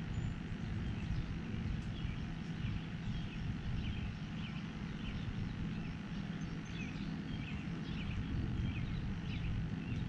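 Small birds chirping repeatedly in short, high calls over a steady low rumble.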